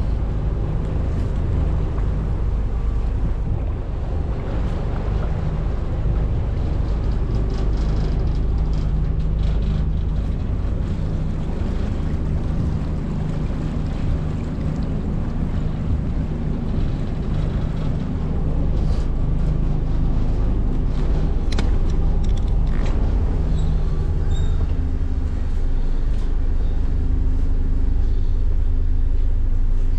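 A large engine running at a steady pace, a constant low humming drone, with a few light knocks in the middle.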